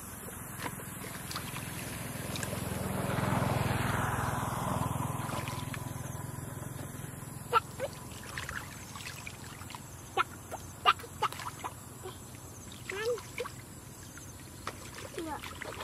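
Hands sloshing and groping in shallow muddy water while fish are caught by hand, with many short sharp splashes and slaps in the second half. Over the first several seconds a broad rush of noise swells and fades.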